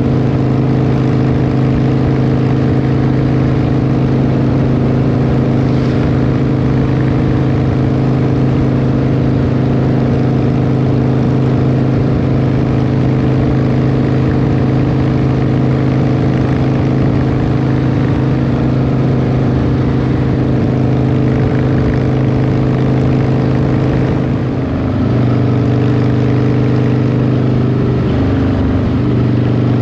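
Cruiser motorcycle engine running steadily at highway speed, mixed with wind and road noise. Near the end the engine note briefly drops and then picks up again as the throttle is eased and reopened.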